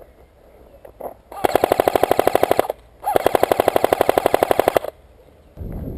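Electric airsoft rifle firing two full-auto bursts, a rapid even rattle of about fifteen shots a second, the second burst a little longer, with a short pause between.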